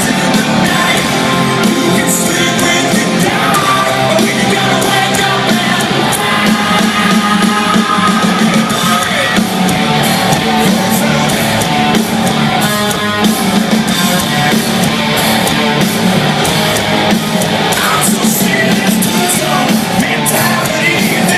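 A live hard rock band playing loudly and without a break, with a dense wall of band sound.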